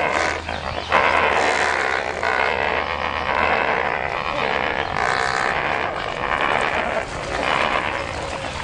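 A flock of flamingos calling together in a dense, continuous chorus during their group courtship display.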